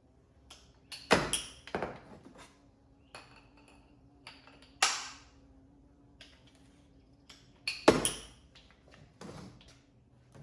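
Sharp clicks and clanks with a short metallic ring, several seconds apart, from the cordless angle grinder and its parts being handled. A faint steady hum runs underneath.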